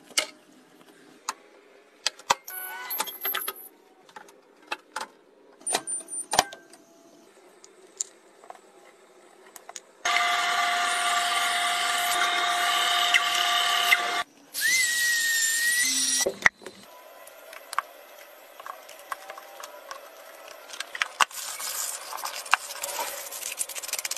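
A scroll saw running and cutting a wooden ring, a loud steady machine sound with a high ringing tone, lasting about six seconds with a short break partway through. Before it come scattered light clicks and knocks; after it, a soft scratchy rubbing as a wooden cup is sanded by hand on sandpaper.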